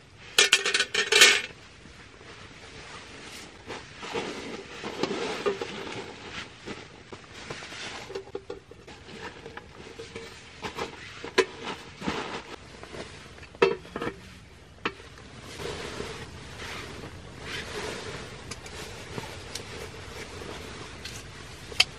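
A Naturehike folding metal camp table being put together: its wire leg frame and panels clink and rattle, with a loud cluster of sharp clinks in the first second and scattered knocks after, over softer handling noise. A single sharp knock comes near the end.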